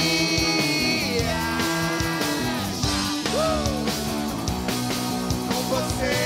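A rock band playing live: a man singing lead over electric guitar, with bass notes and drums underneath.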